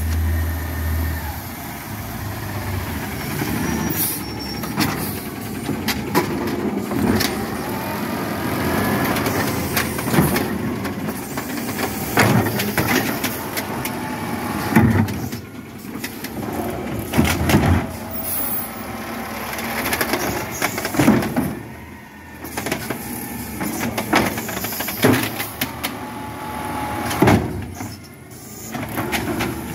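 Peterbilt 320 automated side-loader garbage truck with a natural-gas engine running, its hydraulic arm whining as it grips, lifts and dumps wheeled trash carts. Repeated bangs and thuds come as the carts knock against the hopper and are set back down on the street.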